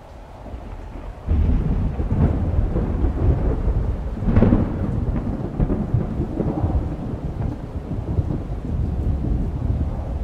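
Thunderstorm: a low rumble of thunder breaks in suddenly about a second in and rolls on, swelling loudest about four seconds in, with rain under it.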